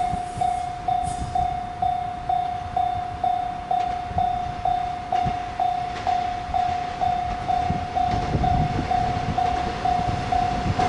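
Japanese level-crossing warning bell ringing, one electronic tone repeating about twice a second. Beneath it is the low rumble of an approaching train, which grows louder near the end.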